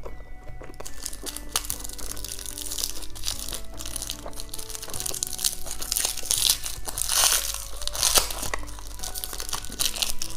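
Crinkly candy wrapper being crumpled and torn as it is peeled off a tube-shaped candy by hand, crackling on and off and loudest about two-thirds of the way through, with background music underneath.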